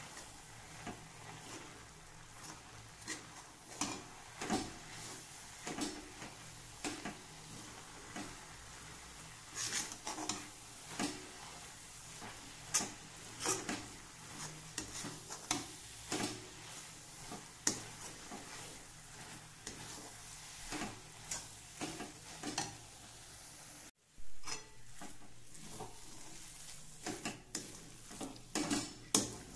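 Steel spatula scraping and knocking against a metal kadhai as grated radish stuffing with gram flour is stirred and mixed, in irregular scrapes and clicks over a low sizzle from the pan on the heat.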